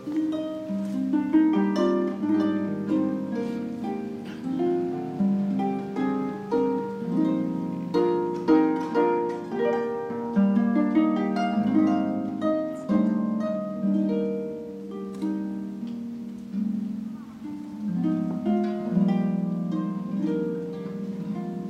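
Concert pedal harp played solo: a continuous flow of plucked notes and chords, each struck sharply and ringing on under the next, mostly in the middle register.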